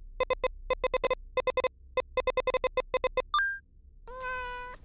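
A quick run of short, identical electronic beeps, one for each character as a terminal command is typed out, then a brief electronic chirp. About four seconds in comes a short meow-like call.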